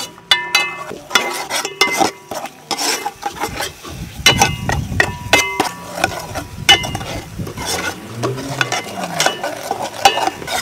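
Metal spatula stirring thick chili curry paste in an aluminium pot, scraping round it and striking its side in a string of ringing metallic clinks. The paste frying with a low sizzle underneath.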